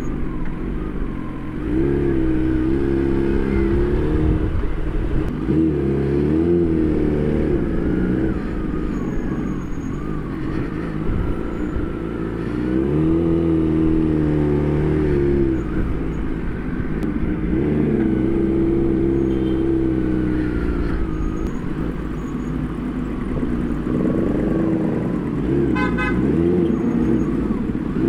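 Kawasaki Ninja ZX-10R inline-four engine running at low road speed, its pitch rising and falling several times as the throttle opens and closes. A vehicle horn toots briefly near the end.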